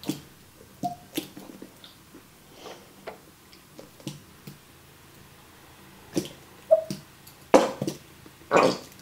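A squeeze bottle of barbecue sauce being squeezed out: wet squelches and sputtering squirts as air and thick sauce are forced through the nozzle. There are two short squeaks, one about a second in and one near the seven-second mark, and the biggest sputters come near the end.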